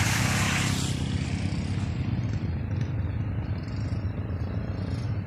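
Off-road vehicle engine running steadily, with a loud hiss of water spray in about the first second as an enduro motorcycle splashes through a muddy puddle.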